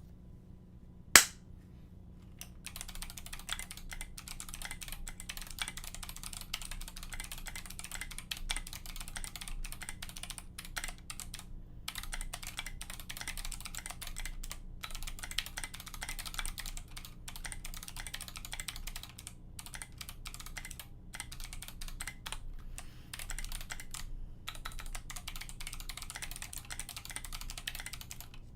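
Mechanical keyboard with Kailh Box Navy clicky switches, a brass plate and SA keycaps being typed on fast: a dense run of crisp clicks with a few short pauses. A single loud, sharp click about a second in comes before the typing starts.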